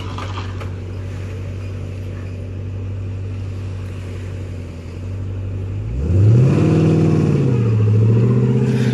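Jeep Grand Cherokee SRT's V8, breathing through a Borla ATAK axle-back exhaust, idling steadily while towing a boat trailer. About six seconds in, the revs rise, dip, then rise again and hold.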